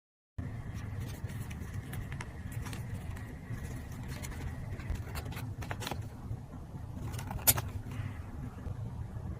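Paper-crafting handling sounds: scattered small taps, clicks and rustles of paper and tools on a desk, with one sharper click past the middle, over a steady low rumble of background noise.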